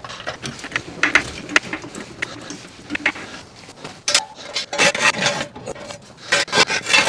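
Hydraulic floor jack being worked under a truck on a concrete floor: a string of irregular clicks, scrapes and metal knocks as it is pumped up against the frame.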